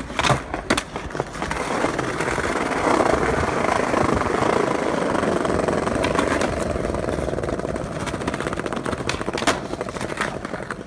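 Skateboard wheels rolling over rough street pavement, a steady grinding roll that builds up and then eases off. Sharp clacks of the board come twice near the start and once near the end.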